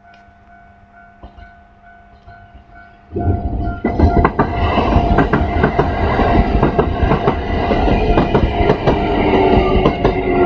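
Level-crossing warning bell ringing steadily, then about three seconds in a Kintetsu electric train passes loudly through the crossing, its wheels clacking rapidly over the rail joints while the bell goes on underneath.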